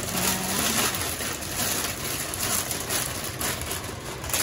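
Plastic bag of pancit canton noodles crinkling as the noodles are shaken out into a stockpot, over a steady rushing noise.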